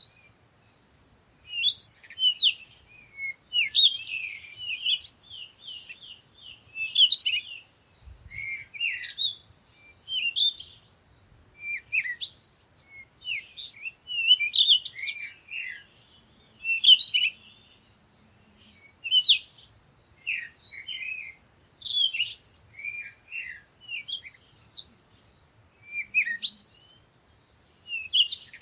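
Songbirds chirping and singing in a morning chorus: quick high chirps and short trilled phrases come in bursts, with pauses of about a second between them.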